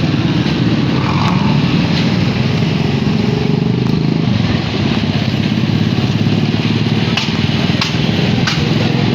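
Motorcycle engine running steadily while riding, heard from on the bike. A few short clicks come near the end.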